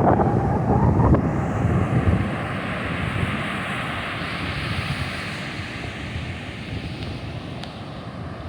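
Wind buffeting the microphone over the steady rush of breaking surf. The heavy gusting rumble eases after about two seconds, leaving a hissing wash that slowly fades.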